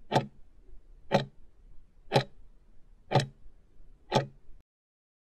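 Countdown-timer tick sound effect: five clock-like ticks, one a second, over a faint hiss, cutting off abruptly after the last tick.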